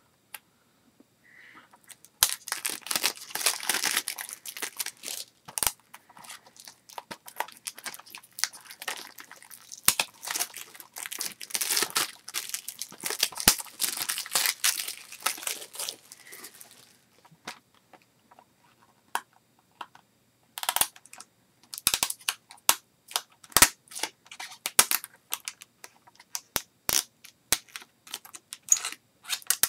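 Thin plastic shrink-wrap being torn and crinkled off a Blu-ray case, a dense crackling that runs for about a quarter of a minute and stops about two-thirds of the way through. After that come scattered sharp clicks and snaps of the plastic case being handled.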